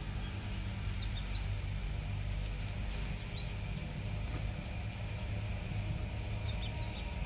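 Small birds chirping a few times, short high calls that slide in pitch, the loudest about three seconds in, over a steady low hum.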